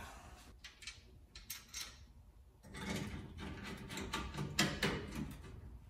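Scattered light clicks and knocks of car body parts and hardware being handled, growing into a denser stretch of clattering about halfway through.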